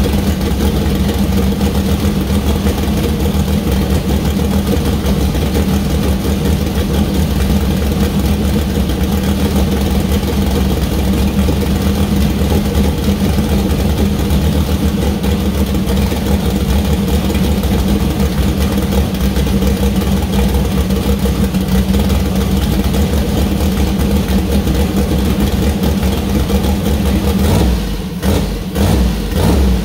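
Newly built turbocharged 427-cubic-inch LS V8 race engine with a solid-roller camshaft, running steadily on its first start-up. Near the end the sound dips and breaks up briefly a few times.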